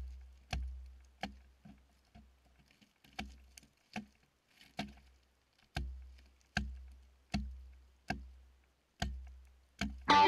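An axe chopping into ice: a steady run of about fourteen sharp strikes, each with a dull thud, a little under one a second, some blows harder than others.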